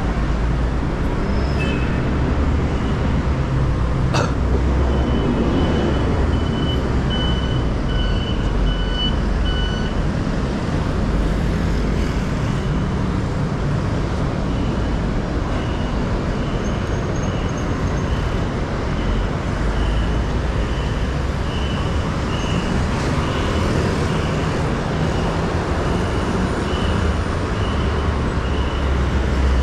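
Busy city street traffic: a steady rumble of cars, buses and scooters passing. A single sharp click comes about four seconds in, and a high electronic beep repeats at an even pace, about once or twice a second, through much of the time.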